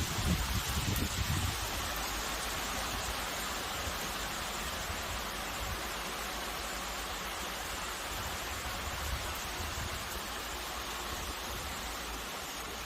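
Steady rain falling, an even hiss. Wind buffets the microphone for the first second or so.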